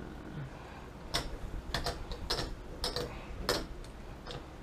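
A run of about seven sharp, irregular clicks and taps, typical of plastic game pieces being picked up, turned and set down on a tabletop.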